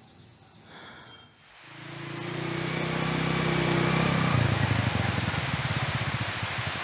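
Heavy rain pouring down, coming in about a second and a half in, with a small motorcycle's engine running through it. The engine's pitch drops about four seconds in as the bike slows, and it then chugs at low revs.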